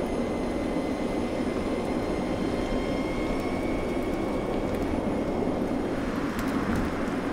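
Audi A6 e-tron concept electric car driving on a road: a steady rush of tyre and road noise with a faint, high electric whine above it.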